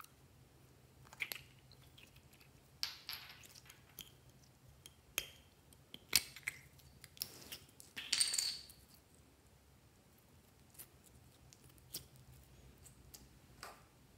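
Small plastic slime pots and squishy toys handled by hand: scattered light clicks and taps, with a longer crackly rustle about eight seconds in.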